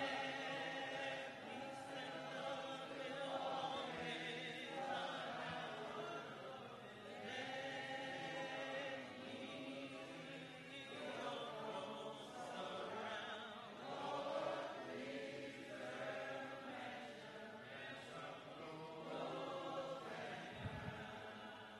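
Church congregation singing a hymn together a cappella, softer than the lead singing before it, and fading out near the end.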